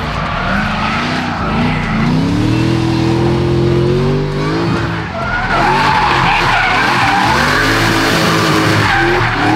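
A drift car's engine revving up and down while its tyres squeal and skid through a drift. The tyre screech grows louder in the second half.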